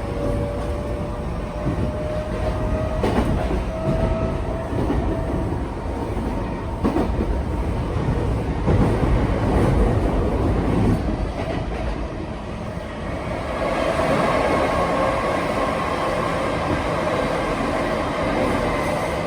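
Tokyo Metro 8000 series electric train running. A motor whine rises slowly in pitch over the first five seconds or so, wheels click over rail joints, and a brighter hissing rumble takes over in the second half.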